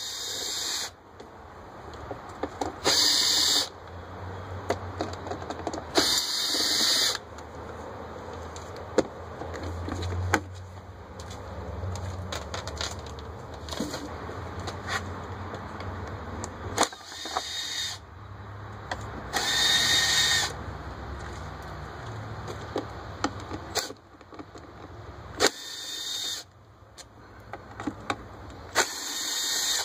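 Cordless drill spinning out the cover screws of a small inverter generator in about five short bursts, with light clicks and knocks of handling the plastic cover in between.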